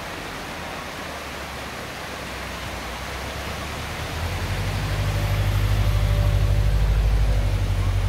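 Steady rushing of a mountain river, with a low rumble building up from about four seconds in and getting louder.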